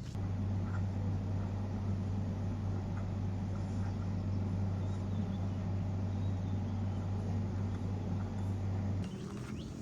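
A steady, low machine hum that cuts off suddenly near the end.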